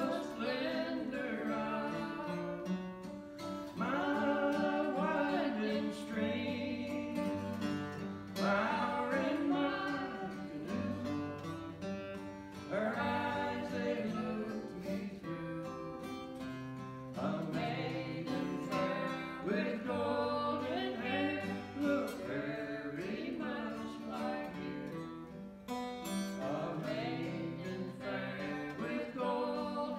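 Acoustic guitar playing a slow folk song, with singing.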